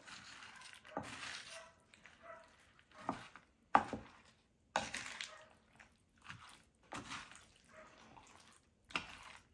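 Wooden spatula stirring gravy into frozen mixed vegetables and chopped chicken in a glass baking dish: irregular wet squishing, with a few sharp clicks as the spatula strikes the glass.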